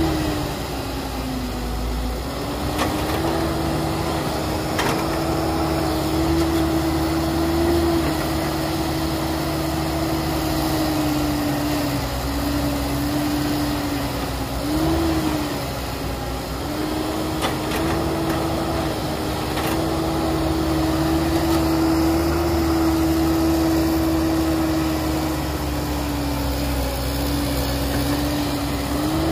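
Heavy construction machine's diesel engine running. Its pitch rises and falls several times as the load comes and goes, with a few faint knocks.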